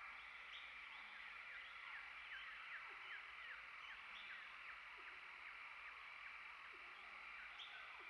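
Faint forest birdsong: many short chirps, each falling quickly in pitch, repeated every fraction of a second over a steady high background hum.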